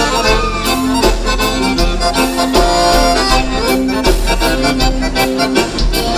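Gaúcho dance music played by a band: an accordion leads an instrumental passage of sustained chords and melody over a bass line and a steady beat.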